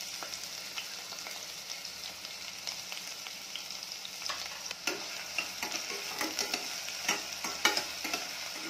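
Chopped onions sizzling in hot sesame oil in a stainless steel pressure cooker, a steady hiss. Over the second half a metal spoon stirs them, clicking and knocking against the pot.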